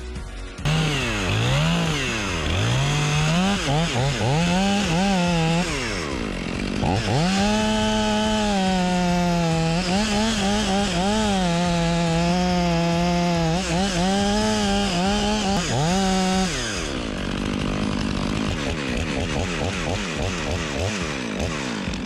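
Stihl chainsaw cutting into a northern red oak trunk. Its engine revs up and down as the throttle is worked, then holds a mostly steady high speed under load through the cut. About sixteen seconds in the engine note drops away and the sound falls quieter.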